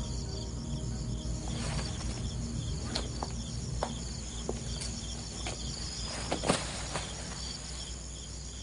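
Crickets chirping steadily in a fast repeating pulse, with a few footsteps and scuffs on paving through the middle.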